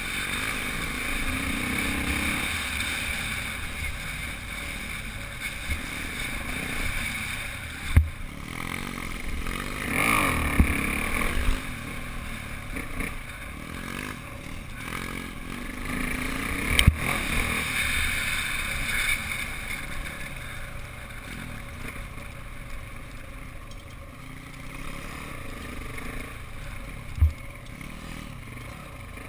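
Off-road motorcycle engine running while riding a dirt trail, its pitch swelling and easing with the throttle. A few sharp knocks cut through it, the loudest about a third and two-thirds of the way in.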